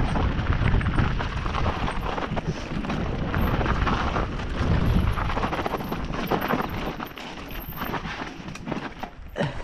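Mountain bike riding fast down a rough dirt trail: tyres rolling over stones and roots and the bike rattling and clattering with each bump, over a steady low rumble of wind and ground noise. It gets quieter over the last few seconds.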